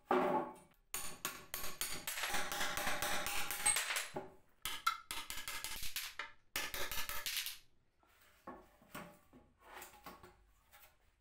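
Hammer striking a steel nail punch set on a nail in a weathered wooden bench plank, in quick runs of metallic taps that thin out to a few scattered knocks near the end.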